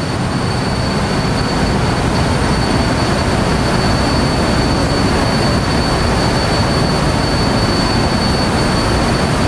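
Steady, loud machinery rush with a thin constant high-pitched whine through it, swelling in over the first second or so and then holding level.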